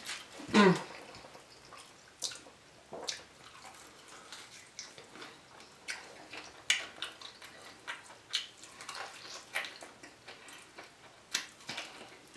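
Close-up eating sounds of a fried chicken wing dipped in sauce: scattered wet lip smacks and chewing clicks. A louder wet smack comes about half a second in.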